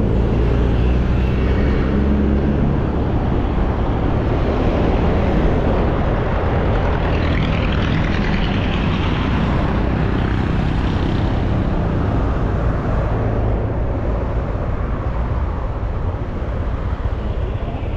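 Steady engine drone of a moving road vehicle under rushing wind and road noise, the rush swelling about halfway through.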